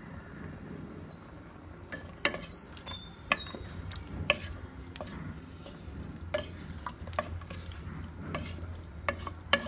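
Wooden spoon stirring a thick mixture of rice, chicken, potatoes and yogurt in a pressure cooker pot, with irregular knocks and scrapes of the spoon against the pot's metal sides.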